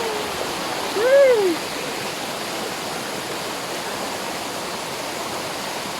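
Rushing water of a small waterfall and mountain stream, a steady hiss. About a second in, a short vocal sound rises and falls in pitch over it.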